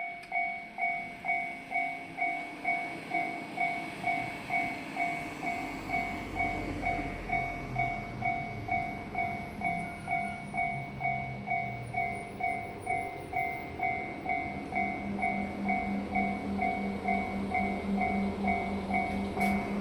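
Japanese railway level crossing warning bell ringing 'kan-kan', an evenly repeated two-tone ding just under twice a second, signalling an approaching train. A low rumble builds underneath in the second half.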